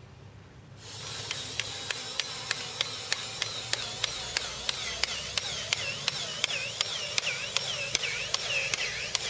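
eCutter powered golf-green hole cutter running as it bores a cup hole down into the putting-green turf. Its motor starts about a second in, with a whine that sags in pitch and recovers over and over, and a sharp click about three times a second.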